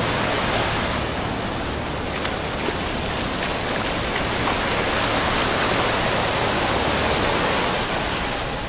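Small surf breaking and washing up a sandy beach: a steady rushing of foaming waves that swells and eases slightly.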